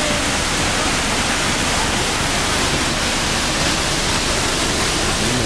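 Waterfall rushing steadily, water pouring down a rock face into a pool.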